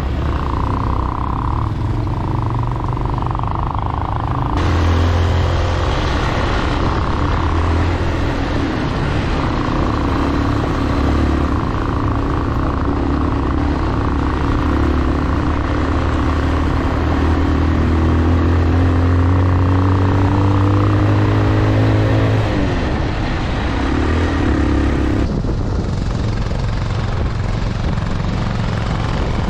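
Motorcycle engine running as the bike is ridden. Its pitch sinks and then climbs again about two-thirds of the way through.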